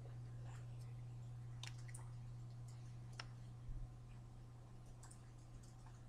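Faint scattered clicks and taps of hands meeting while signing in sign language, over a steady low hum. There are four sharp clicks in the first few seconds and a dull thud a little past halfway.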